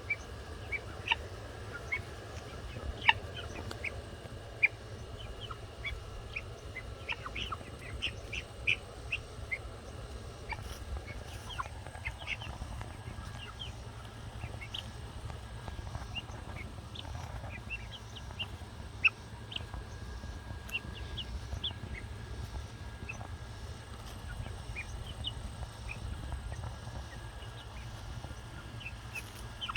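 Young pearl guinea fowl, about ten weeks old, giving short high chirps and peeps scattered irregularly, a few louder than the rest, over a low steady rumble.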